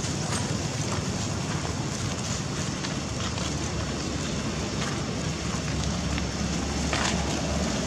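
Steady wind noise rumbling on the microphone outdoors, with a few faint clicks.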